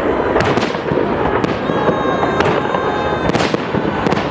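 Fireworks salute going off: a continuous rumble and crackle of bursting shells, with sharp bangs every half second to a second.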